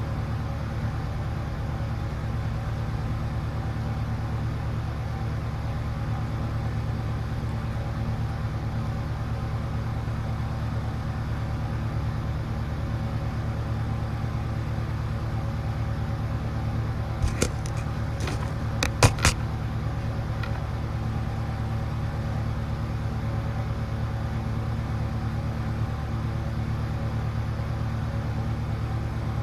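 Steady low hum with a few faint held tones, like electrical or room hum picked up by the microphone. About two-thirds through comes a quick cluster of five or six sharp clicks.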